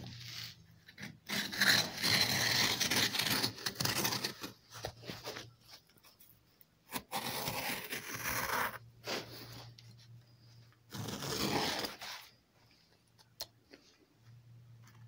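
Hand-held adjustable thong cutter (sacatientos) slicing a thong from a thick cowhide strip, the blade scraping and tearing through the leather in three stretches, the longest near the start, with short pauses between them.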